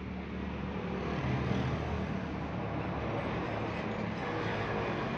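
Traffic noise: a motor vehicle engine running nearby, a steady low hum that grows louder about a second in.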